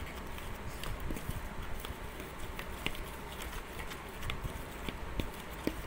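A steel spoon stirring flour and coconut oil in a plastic bowl: soft scraping with scattered light clicks of the spoon against the bowl, over a low steady background hum.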